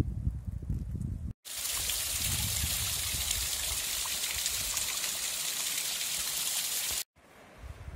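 Low rumble of wind buffeting the microphone, giving way abruptly about a second and a half in to a small mountain stream trickling steadily down mossy rocks, which cuts back to wind rumble near the end.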